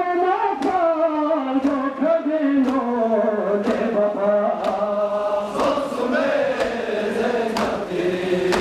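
A crowd of men chanting a mournful noha together in long, drawn-out notes. Sharp slaps land about once a second in time with the chant: the mourners beating their chests (matam).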